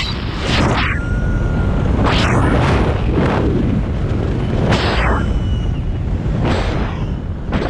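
Wind buffeting the camera's microphone in a tandem paraglider's flight: a loud rumbling rush that swells in gusts about five times, with a couple of brief faint high tones.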